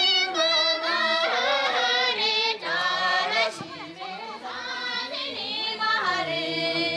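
A group of women's voices singing a traditional Tibetan dance song together, holding long melodic notes.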